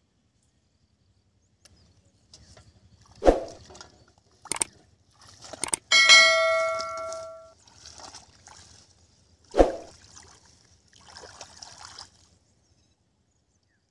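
A metal basin clangs about six seconds in, ringing with several tones that die away over about a second and a half. Dull knocks come before and after it, with splashing and sloshing of shallow water in between.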